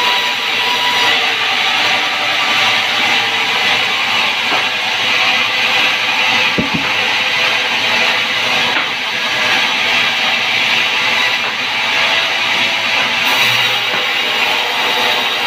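Band sawmill machinery running steadily, with guitar music playing along, and a single low thud about six and a half seconds in.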